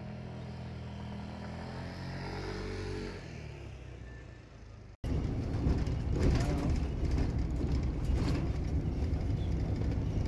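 A motor vehicle's engine running, its pitch falling away as it passes. After an abrupt break about five seconds in, louder rough rumbling noise follows, with a low engine-like hum still underneath.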